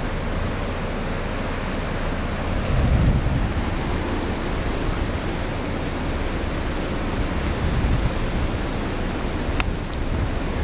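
Fast floodwater rushing, a steady wash of water noise, mixed with wind noise on the microphone. A louder low rumble swells about three seconds in.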